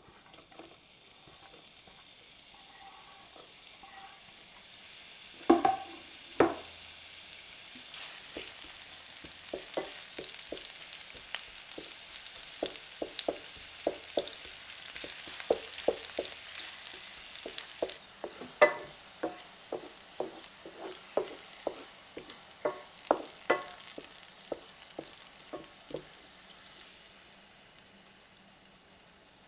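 Sliced onion and garlic frying in oil in a pan, a steady sizzle that grows louder and then eases after about eighteen seconds. A wooden spoon stirs and knocks against the pan over and over, with two louder knocks about five and six seconds in.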